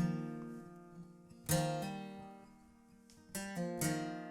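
Acoustic guitar playing the song's intro: chords strummed and left to ring out and fade, a fresh chord struck about a second and a half in and two more close together near the end.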